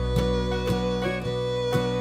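Background music: a fiddle melody over guitar strumming with a steady beat of about two strokes a second.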